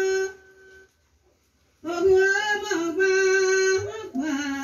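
A woman's voice singing long held notes with no accompaniment, sliding between some of them, with a pause of about a second and a half shortly after the start.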